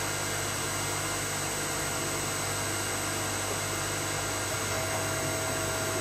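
Electric motor and hydraulic pump, salvaged from a vehicle lift and driven by an inverter at full 50 Hz speed, running with a steady hum while the press ram travels. A faint higher whine joins in near the end.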